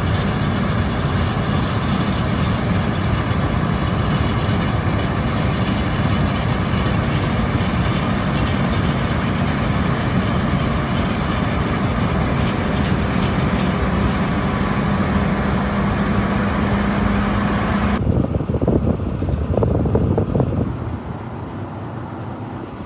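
John Deere combine harvester running while cutting wheat: a steady, loud engine and machinery drone with a low hum. About 18 seconds in it cuts off abruptly, giving way to a quieter, thinner background with a few brief irregular sounds.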